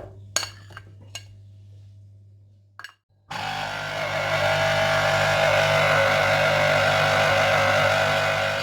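A few light clicks, then an electric blender starts about three seconds in and runs steadily for about five seconds, blending mango pieces with lemon juice, before cutting off.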